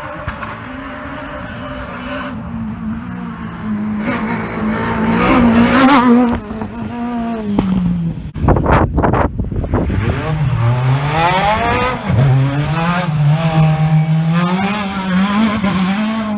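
Rally car engines revving hard and shifting gear as they drive past on loose gravel and dirt stages, the pitch repeatedly climbing and dropping. About eight seconds in comes a loud rush of noise lasting about a second and a half.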